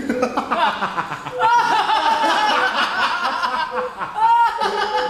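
A person laughing and chuckling, over a short beep that repeats a little more often than once a second.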